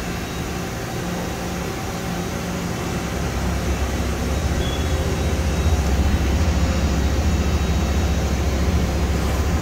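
Haas VF-3SS CNC vertical machining center running, with coolant spraying inside its enclosure: a steady mechanical hum and hiss with a few constant tones. The low hum grows louder about halfway through.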